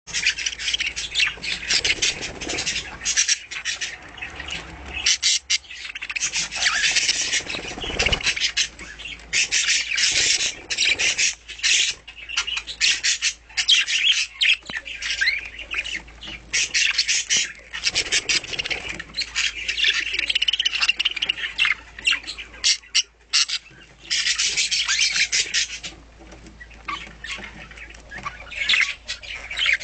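A group of budgerigars chattering: rapid warbles, clicks and squawks, near-continuous, with brief lulls near the end.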